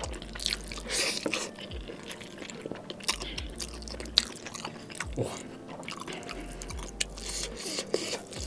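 A mouthful of Samyang jjajang instant noodles being slurped in and chewed, with many short wet mouth smacks and clicks.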